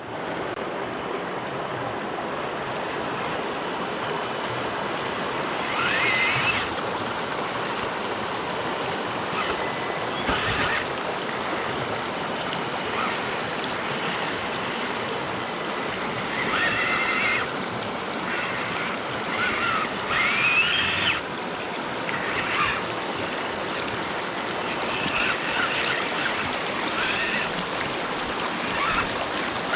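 Steady rush of flowing stream water, with the small electric motor of a 4x4 RC crawler whining up in pitch in short bursts, five or six times, as it is throttled through the water.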